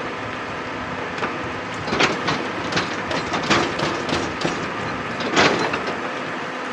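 Excavator engine running steadily, with irregular metallic clanks and knocks from about two seconds in, the loudest near the end: the bucket working against rock.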